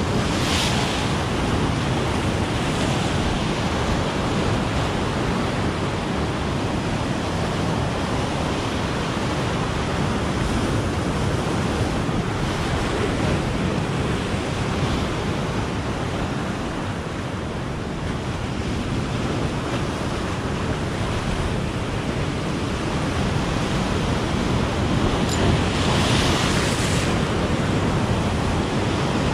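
Sea surf breaking and washing over rocks in a steady rush. A wave breaks with a louder hiss about half a second in, and another near the end.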